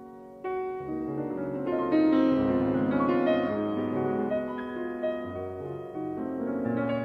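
Solo piano playing a soft, legato waltz melody over full, sustained chords. After a quiet moment at the start, a new chord enters about half a second in and the playing grows fuller and louder about two seconds in.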